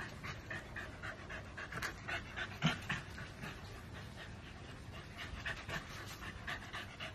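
Dogs panting quickly and evenly, with one brief louder sound about two and a half seconds in.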